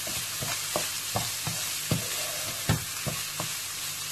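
Rice toasting in butter with onion, raisins and pine nuts in a nonstick wok, stirred with a wooden spoon: a steady sizzle with irregular soft knocks of the spoon against the pan, the loudest about two and a half seconds in.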